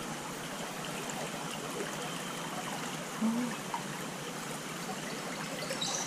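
A small bush creek's water running and trickling steadily.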